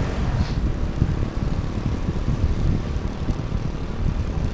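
Wind buffeting the microphone of a camera riding on a moving bicycle, a steady low rumble.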